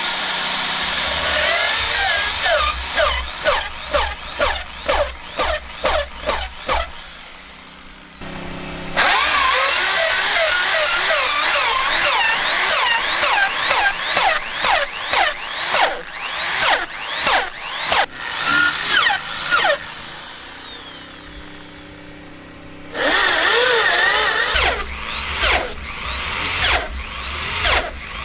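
Power drill boring into wood, run in long stretches and in short pulsing bursts, about two a second. It drops away briefly about eight seconds in and again for a few seconds around twenty seconds in.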